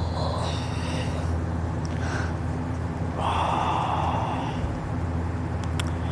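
A sleeping person snoring: two noisy breaths about three seconds apart, the second, starting just past three seconds in, longer and louder than the first.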